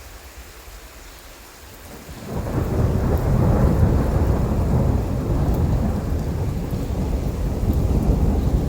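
Faint steady rain hiss, then about two seconds in a loud, deep rumble of thunder sets in suddenly and keeps rolling, swelling and easing.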